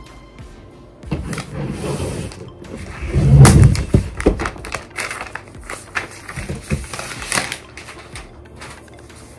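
Unpacking sounds from a new Apple Magic Keyboard: a frosted plastic protective sheet crinkling as it is peeled off, with knocks and light thuds of the keyboard being handled on a table. The loudest thud and rustle come about three and a half seconds in.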